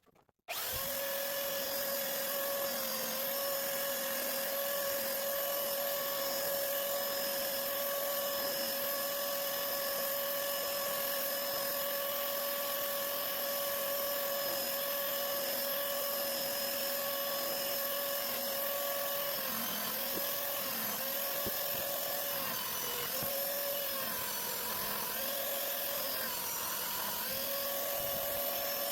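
Small power tool's electric motor running at a steady high-pitched whine while working wood, its pitch dipping briefly several times near the end as it is loaded.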